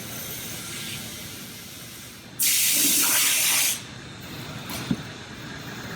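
A short burst of pressurised hissing, about a second and a half long, a little over two seconds in, heard while a flat tire is being repaired. A faint click follows near the end.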